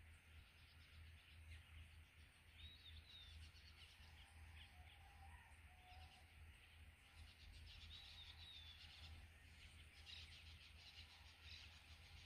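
Near silence: faint riverside ambience with a few distant bird chirps.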